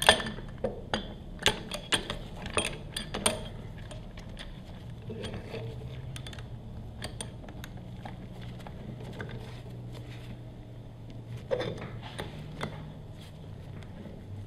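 Sharp metallic clinks and clicks of a wrench and steel bolts on a pressure washer pump head, several in the first three seconds or so, then quieter scattered handling sounds as the loosened head bolts are turned out, with a few more clicks near the end.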